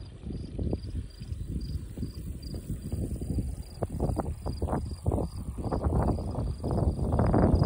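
A cricket chirping steadily in a regular rhythm, about three high chirps a second, over a louder uneven low rumble of noise on the microphone that swells near the end.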